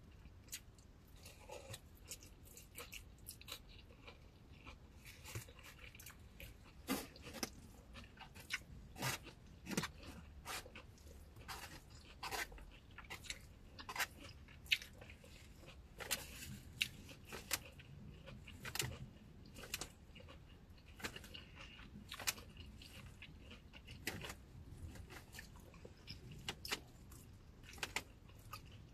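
A person chewing and eating Chinese takeout food close to the microphone: faint, irregular clicks and crunches of mouth and chewing sounds.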